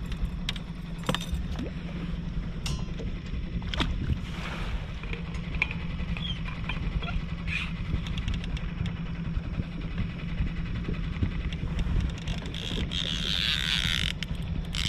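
Boat outboard motor running steadily at slow trolling speed, a low even rumble, with a few clicks and knocks of handling in the boat and a short hiss near the end.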